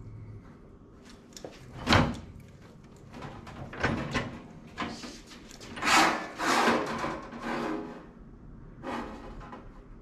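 Sheet metal being handled in a manual sheet-metal brake: a sharp metal clank about two seconds in, then several rasping slides and scrapes as the sheet is moved against the brake.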